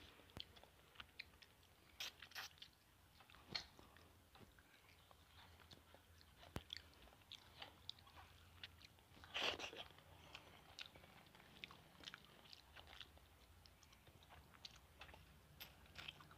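Faint sounds of a person eating rice and fried fish by hand: chewing and small mouth clicks, with fingers mixing rice on a glass plate. A brief louder noise comes about nine and a half seconds in.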